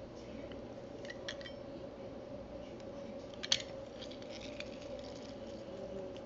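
Hand-held lever citrus press squeezing a lime over a bowl, with a few small clicks and one sharper clack about halfway through. A steady low hum runs underneath.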